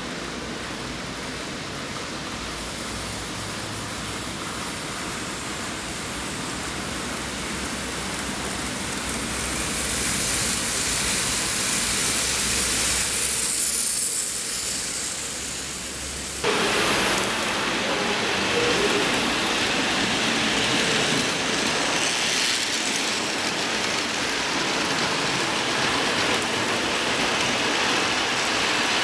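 Model railway trains running on the layout close to the microphone: a steady rattling rush of wheels and motors on the track. It builds over the first half, dips briefly, then jumps up suddenly about 16 seconds in and stays loud.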